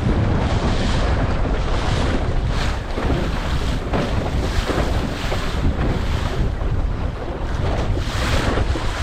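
Strong wind buffeting the microphone of a head-mounted GoPro, a continuous heavy rumble, with waves washing and splashing against a small sailing dinghy's hull in repeated hissing surges.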